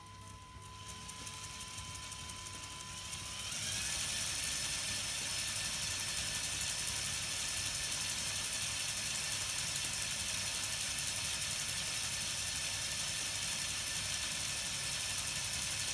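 LEGO Technic electric motor spinning a model Zero fighter's propeller and working its control surfaces through plastic gears. It makes a fast rattling whir that rises in pitch and loudness over the first few seconds, then runs steadily.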